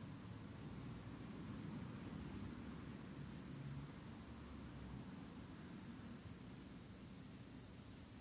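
An insect chirping in short high pulses, about two or three a second, over a steady low rumble.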